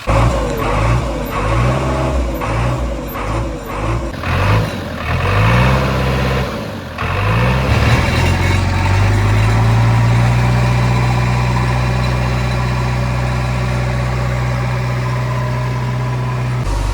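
Diesel engine of heavy farm or earthmoving machinery revved up and down in about six quick surges, then held at a steady high speed under load before dropping back suddenly near the end.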